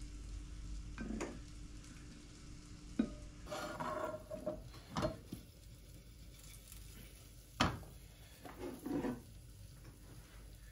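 Food frying in a pan with a faint sizzle, while a utensil scrapes and knocks against the pan a few times, the sharpest knocks about three and seven and a half seconds in.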